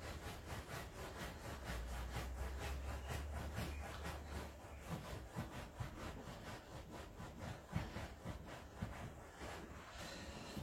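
Rhythmic back-and-forth rubbing strokes on a hard surface, about four to five a second, as in hand sanding, filing or sawing.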